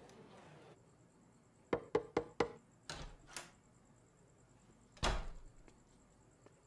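Knocking: four quick, sharp raps about two seconds in, two fainter taps just after, then one heavy, deeper thud about five seconds in.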